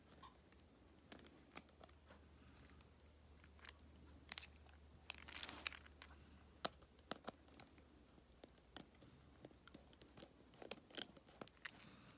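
Faint, scattered small clicks and scrapes of a tri-point precision screwdriver working a tiny screw inside an iPhone 7, over a low steady hum.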